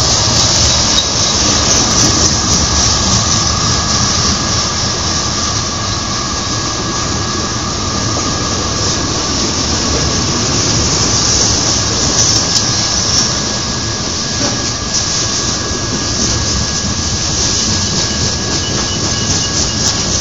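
Freight cars of a BNSF manifest train rolling past at close range, a loud steady rumble of wheels on rail with a thin, steady high-pitched wheel squeal running through it.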